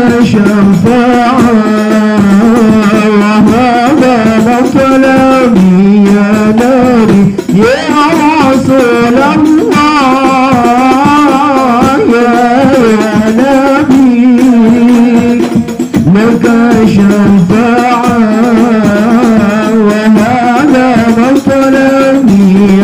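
Sholawat devotional singing: a male lead singer on a microphone sings a slow Arabic melody with long, wavering held notes, backed by chorus voices and a steady beat of hand-played frame drums (rebana).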